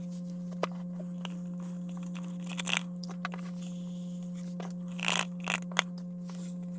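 Fine granular charcoal poured from a plastic jug through a plastic funnel into a PVC filter tube, a light gritty trickle with short scrapes and knocks of the jug and funnel, the loudest a cluster about five seconds in. A steady low hum runs underneath.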